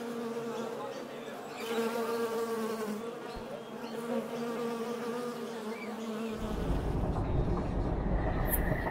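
Wasp buzzing, a steady low-pitched drone, played as the sound effect of a giant model wasp. A low rumble joins about two-thirds of the way in.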